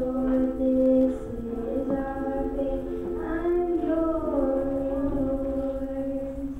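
Young girl singing a melody into a microphone with ukulele accompaniment, ending on a long held note that stops near the end.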